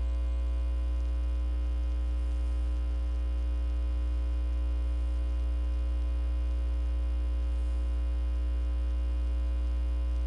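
Steady electrical mains hum: an unchanging low drone with fainter steady tones above it.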